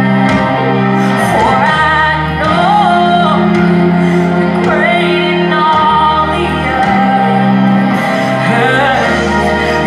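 Music with a woman singing a gliding melody over sustained chords.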